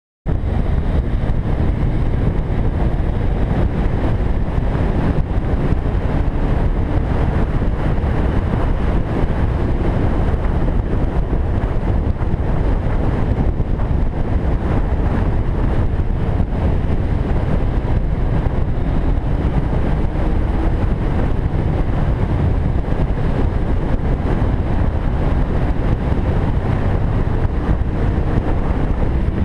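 Loud, steady wind rush buffeting the microphone of a camera on a moving motorcycle, with the bike's engine faintly underneath, its pitch drifting up and down. It cuts in abruptly just after the start.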